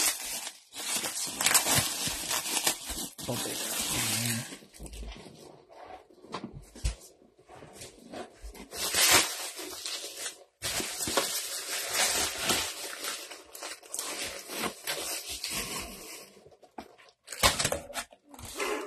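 Clear plastic packaging wrap crinkling and tearing in irregular bursts as a package is unwrapped by hand.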